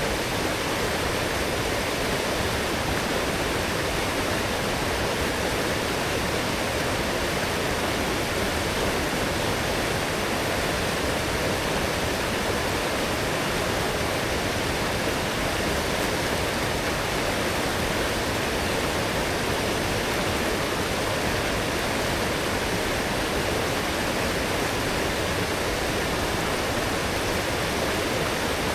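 A strong forest stream running high after heavy rain, its water rushing steadily over rocks with no change in level.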